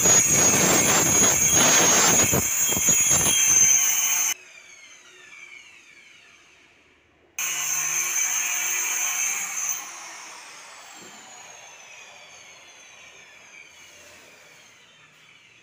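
Electric power saw running loud for about four seconds, then switched off, its whine falling as the blade spins down. About three seconds later it starts again for a couple of seconds and spins down once more with a long falling whine.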